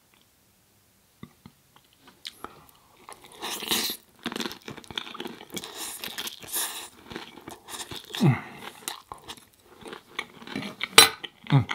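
Close-miked biting and chewing of a crisp fried-tortilla taco salad bowl. After a short quiet start, a loud crunching bite comes about three and a half seconds in, followed by steady crunchy chewing.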